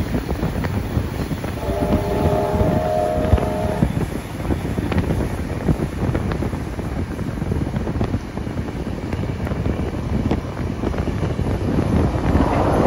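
Riding aboard a steam-hauled passenger train at speed: wind buffeting the microphone over the rumble and irregular clatter of the train. About two seconds in, a whistle sounds a steady multi-note chord for roughly two seconds. The rushing noise grows louder near the end.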